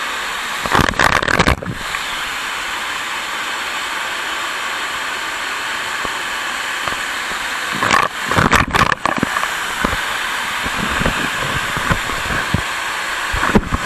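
Waterfall pouring, heard close up from behind the falling curtain of water: a steady, loud rush, with brief rougher, louder bursts about a second in, around eight seconds in and near the end.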